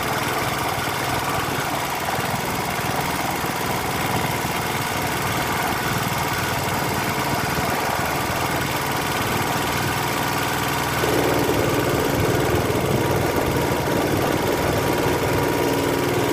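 Small 3.5 hp single-cylinder air-cooled petrol engine running steadily, driving a rowboat. It gets a little louder about two-thirds of the way through.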